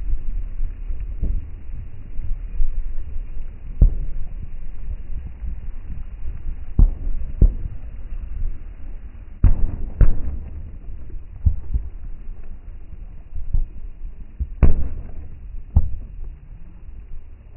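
Fireworks bursting: a series of sharp bangs at irregular intervals, a second or two apart, over a steady low rumble.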